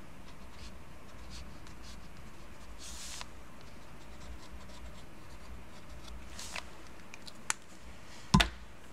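A pen drawing short strokes on painted paper, heard as faint scratching. Near the end comes a single sharp knock as the pen is put down on the tabletop.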